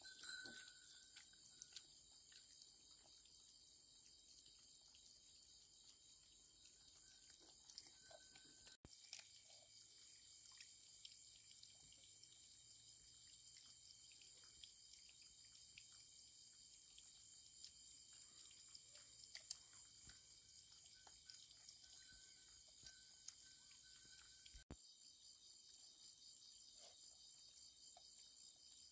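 Faint, steady high-pitched chirring of an insect chorus, with a few scattered soft clicks and taps.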